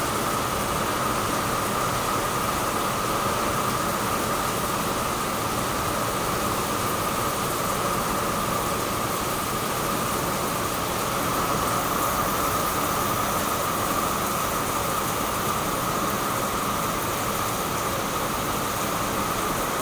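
Heavy rain pouring down steadily: an even, unbroken hiss.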